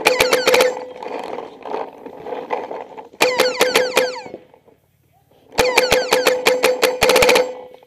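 Planet Eclipse Etek3 LT paintball marker firing three rapid strings of shots, the last one the longest. A steady tone sounds under each string, a noise that comes with every shot and that the owner puts down to something in the low-pressure regulator (LPR).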